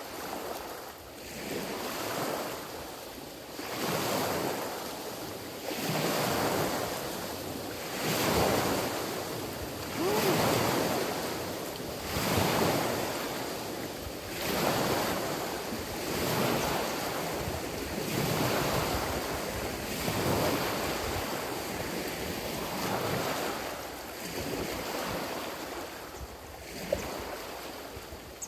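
Small waves washing onto a lakeshore, swelling and falling back about every two seconds, with some wind on the microphone. A single sharp click near the end.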